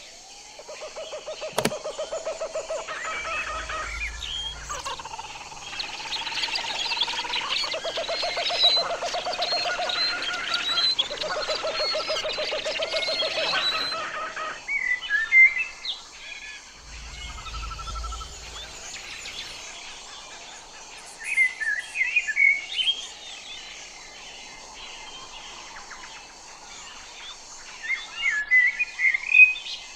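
Common blackbird singing: a dense run of overlapping calls and trills for the first half, then short song phrases a few seconds apart.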